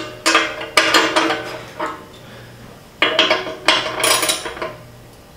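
A metal wrench clinking against a steel bumper and its bolts while a nut is tightened: sharp metal-on-metal strikes that ring briefly, coming in several clusters.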